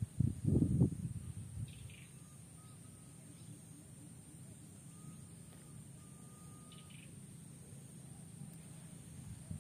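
Outdoor ambience with faint birds chirping and whistling now and then over a steady high hiss; a short low rumble, the loudest thing, comes about half a second in.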